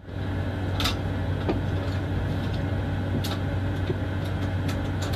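Steady low drone of aircraft cabin ambience, with a constant hum and a few faint clicks.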